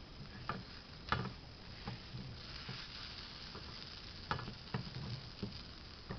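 Pancake batter frying in butter in a pan, sizzling steadily, while a utensil knocks and scrapes against the pan several times, loudest about a second in and again just past four seconds.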